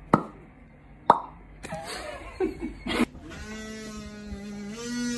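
Two sharp pops about a second apart, then a few short vocal sounds and a steady held note with a buzzy, overtone-rich voice quality lasting about two seconds, rising slightly near the end.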